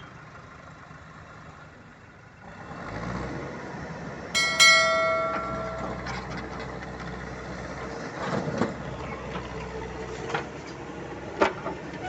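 Diesel engine of a JCB 3DX Plus backhoe loader running, coming up in level about two and a half seconds in. About four and a half seconds in there is a loud metallic clang that rings on for about a second and a half, and a few sharp knocks follow near the end.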